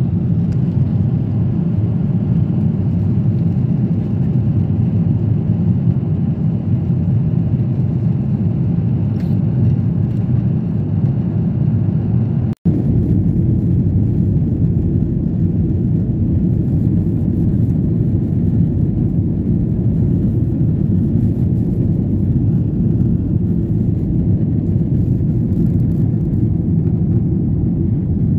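Jet airliner cabin noise in flight: a steady, loud low rumble of engines and airflow heard from a window seat. It breaks off for an instant about halfway.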